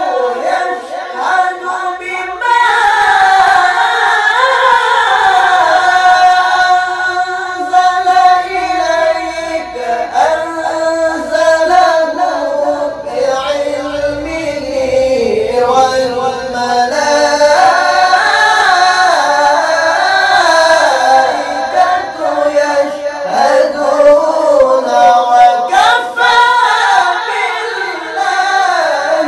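Two qaris (Quran reciters) chanting in duet, unaccompanied, in high, long melismatic phrases whose held notes wind up and down with ornaments. The phrases break briefly for breath a few times.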